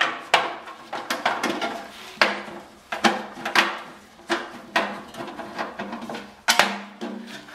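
A hand nut driver turning out a 5/16 screw from a furnace blower's sheet-metal housing: an irregular run of about a dozen metallic clinks and scrapes, the thin housing ringing briefly after each.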